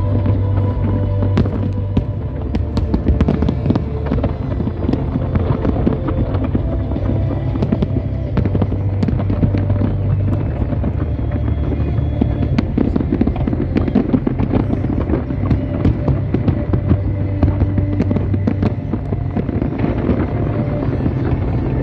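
Large aerial fireworks display: a dense, unbroken run of shell bursts and crackling, with sharp bangs several times a second over a constant low rumble.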